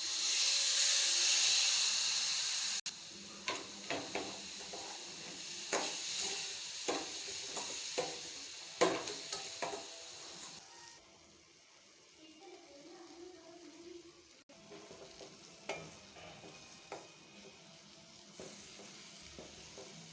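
Food sizzling in a hot pan, loudest for the first three seconds, then a spoon clicking and scraping against the pan as it is stirred; the sizzle dies down after about ten seconds.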